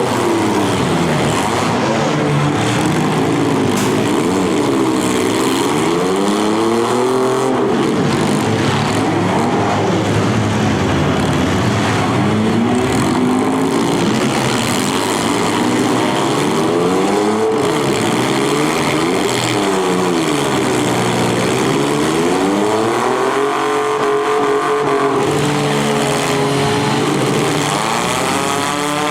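Several demolition derby cars' engines revving, their pitch climbing and falling again every second or two and overlapping one another.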